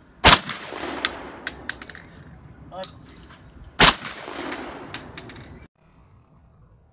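Two shots from an Ata Arms Venza Sporter semi-automatic 12-gauge shotgun, about three and a half seconds apart, each followed by a long echo. Several fainter sharp cracks fall between and after the shots. The sound cuts off abruptly near the end.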